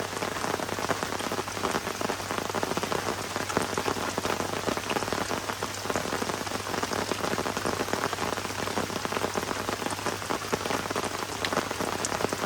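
Heavy rain pouring down steadily, a dense pattering of drops.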